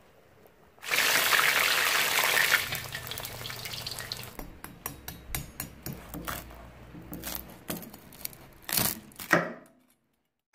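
The pork hock cooking in the pot with a loud hiss for about two seconds. Then the puffed, crackled skin of a deep-fried pork hock (crispy pata) crunching and crackling in many sharp little snaps as a knife cuts into it, with two louder crunches near the end.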